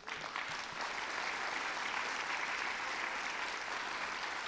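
Audience applauding: a steady, dense patter of many hands clapping, rising quickly just after the start and holding even throughout.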